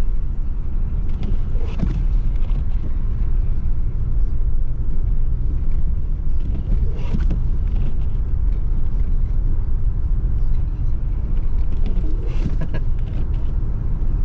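Steady low rumble of a car driving on wet, slushy snow, heard from inside the car, with a few faint short sounds around 2, 7 and 12 seconds in.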